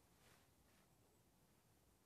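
Near silence: room tone, with a couple of faint soft rustles early on as a newborn puppy is set down on a cloth towel.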